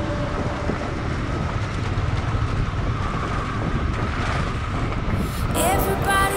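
Motorcycle riding over a wet, rocky dirt track: engine and rough-road rumble under wind buffeting the microphone. Music with singing comes back in near the end.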